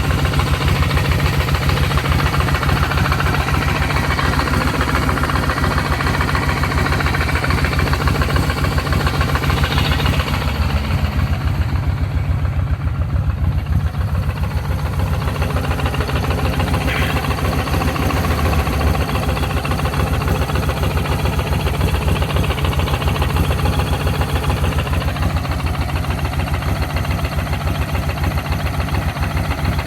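Kawasaki VN1500 Classic's V-twin engine idling steadily, with its ticking noise fixed.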